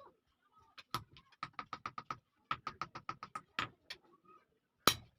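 Blacksmith's hand hammer striking iron on an anvil with a ringing metallic note: quick runs of light blows, about six a second, then a few heavier single strikes, one of the loudest near the end.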